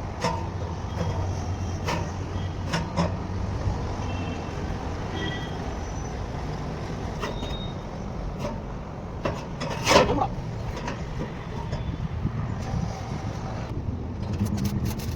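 A steady low mechanical hum, like an engine running, with scattered short knocks and one loud knock about ten seconds in.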